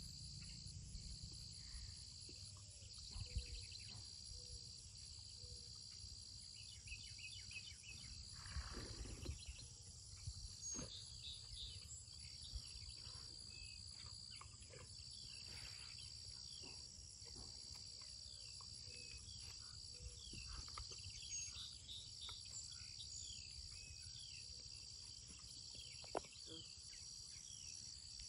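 Insects chirring in a steady, high-pitched, pulsing drone, with a low rumble underneath.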